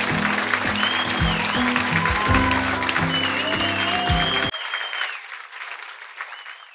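Audience applauding and whistling over loud music with a heavy beat. The music cuts off suddenly about four and a half seconds in, and the applause fades out.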